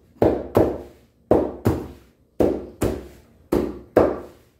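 A pizza cutter chopping down through a pizza onto its base, making sharp knocks in pairs, about eight strokes in all.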